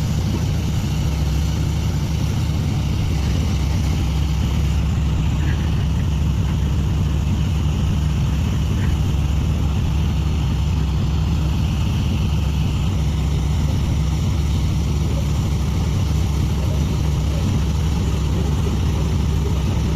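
Heavy engine of a borewell drilling rig running steadily, a constant low drone.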